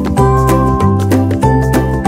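Background music with a steady beat over sustained bass notes, a high melody line wavering above them.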